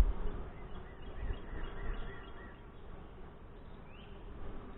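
Honey bees buzzing around an open hive, a steady faint hum, with a few short bird chirps about two seconds in.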